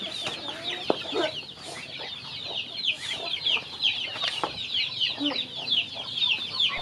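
A flock of young poultry peeping without pause: short, high, falling peeps, several a second. Lower clucks from adult hens are mixed in.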